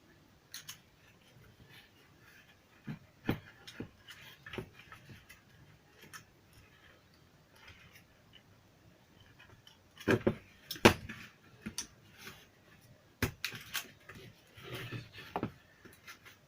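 Scattered clicks and knocks of small plastic parts and tools being handled while a portable Bluetooth speaker is taken apart, with a louder cluster of knocks about ten seconds in.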